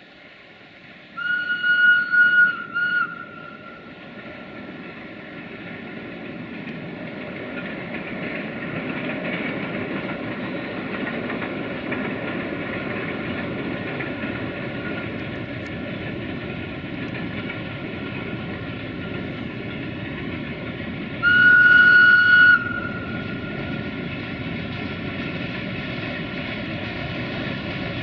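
A CFR class 060-DA (LDE2100) diesel-electric locomotive hauling a freight train, its engine and wagons growing louder as it comes closer. It sounds its high, single-note whistle in a few short broken blasts about a second in, and once more, a little over a second long, about seven seconds before the end.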